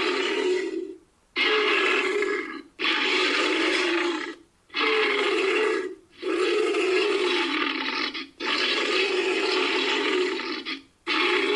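A run of animal roars, about seven calls of one to two seconds each, every one cut off cleanly by a short silence. They are made up as the voice of an extinct hoofed carnivore, built from bear and hippopotamus recordings.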